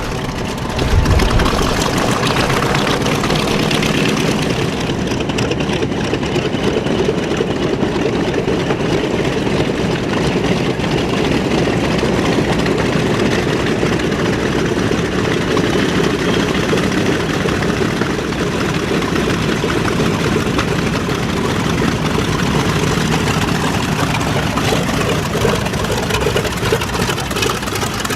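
The twin Wright R-2600 radial engines of a B-25J Mitchell bomber running steadily, getting louder about a second in.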